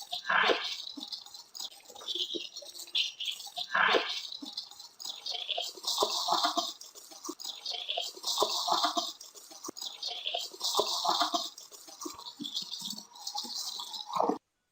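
Garbled, heavily filtered voice-like audio, unintelligible: irregular hissy bursts and muffled fragments in a speech-like rhythm. It cuts off abruptly near the end.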